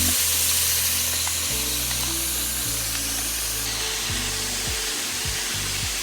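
Chicken pieces frying in peanut and vegetable oil in a frying pan: a steady sizzle, heard under background music whose low notes change every second or so.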